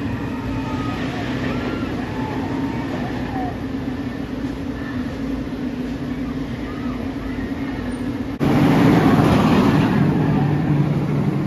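Rocky Mountain Construction roller coaster: a steady low mechanical hum with faint crowd voices, then, after a sudden cut about eight seconds in, louder noise of the coaster train running on its track.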